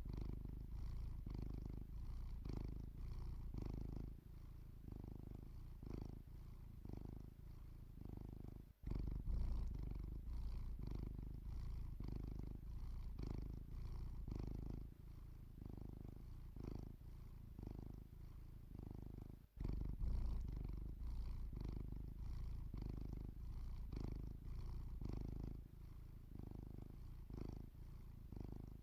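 Domestic cat purring steadily close to the microphone while asleep, the purr swelling and fading with each breath in and out. It breaks off briefly twice.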